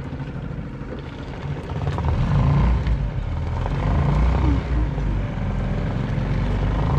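A boat's engine running steadily, getting louder from about two seconds in.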